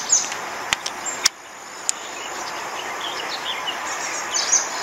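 A few sharp plastic clicks from a Quantum Accurist baitcasting reel in the first two seconds as its side cover is snapped back into place, over a steady outdoor hiss. Short high chirps come in later, around the middle to near the end.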